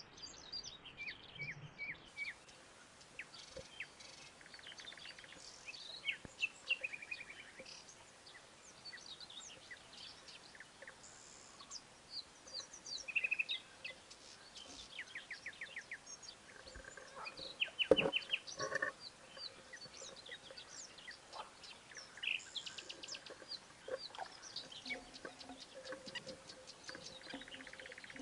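Songbirds chirping and trilling, many short overlapping calls and rapid trills, over a faint steady hiss. About eighteen seconds in, a single sharp knock stands out as the loudest sound.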